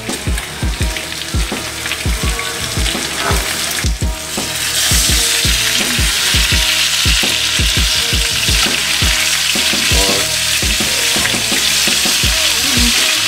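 Chicken wings in a brown-sugar spicy rub frying in a skillet over a gas burner, sizzling. The sizzle grows louder and steadier about four seconds in. The sugary rub left in the pan is starting to burn.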